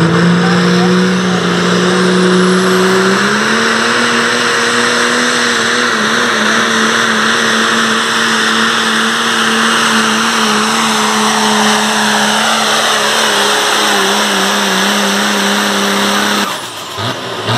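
Turbocharged diesel engine of a pro stock diesel pulling truck (a modified Ford pickup) run hard while pulling a sled, its pitch stepping up about three seconds in and then holding steady, over a high whine that climbs early on. The engine sound cuts off abruptly near the end as the pull finishes.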